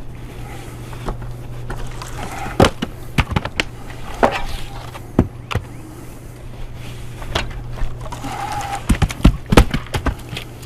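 Split firewood pieces knocking and clattering against each other as they are pulled off a pile and dropped: sharp irregular knocks in clusters, the loudest near the end, over a steady low hum.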